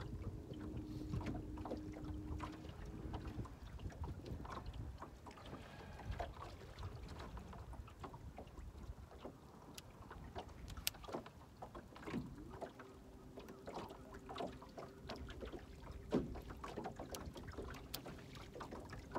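Small waves lapping against the hull of a small aluminum fishing boat, with light wind and scattered small clicks and knocks. A faint steady hum runs for the first few seconds and again over the last several.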